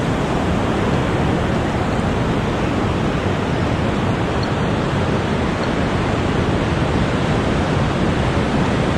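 Steady rush of surf washing in the shallows, mixed with wind rumbling on the microphone: a constant hiss with a heavy low rumble and no breaks.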